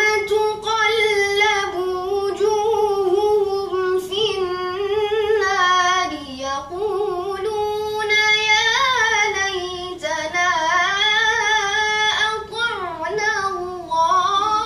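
A boy reciting the Quran in the melodic, chanted style of a recitation competition, drawing out one long ornamented phrase with wavering pitch. Heard through a television's speaker.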